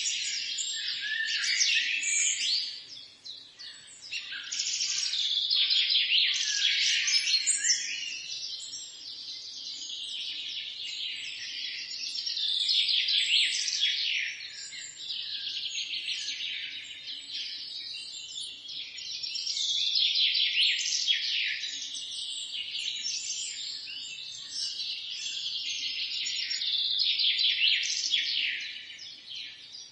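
Several birds singing together in a dense chorus of rapid, high-pitched chirps and trills, dipping briefly a few seconds in and again near the end.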